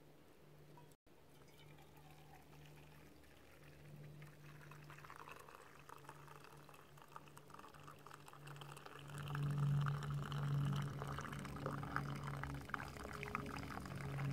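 Cowboy coffee being poured from a soot-blackened steel cup into a stainless steel mug, decanted off its settled grounds: a thin stream trickling and splashing, louder from about halfway through. A steady low hum runs underneath.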